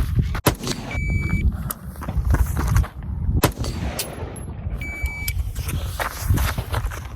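Single rifle shots from a B&T APC 223 (.223), three in all: under a second in, about three and a half seconds in, and at the very end. A shot timer's short high start beep sounds twice, each about two seconds before a shot, with low rumbling noise of movement and wind between.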